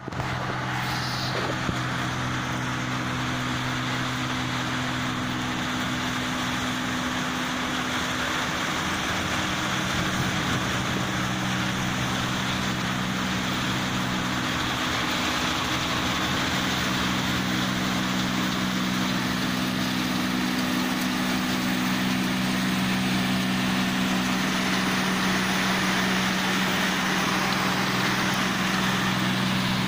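New Holland 8070 tracked combine harvester running steadily while cutting rice: a constant diesel engine drone with an even rushing noise from the working machinery over it, growing a little louder as it comes closer.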